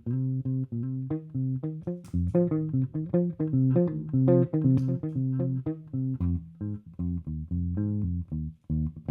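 Electric bass (Fender Jazz Bass) played through a Mad Professor Forest Green compressor pedal into a Gallien-Krueger bass amp, in a riff of short, separate plucked notes. It grows louder, with higher notes, in the middle.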